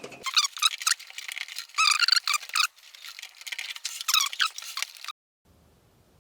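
Plastic squeaking and creaking as a power supply cable connector is worked into its socket on the motherboard. The squeaks come in a busy run of short, high, wavering bits and stop abruptly about five seconds in, leaving a faint low hum.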